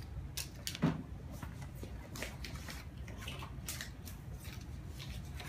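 Light rustles and scattered clicks of cardboard and plastic toy packaging being handled, with one louder knock about a second in.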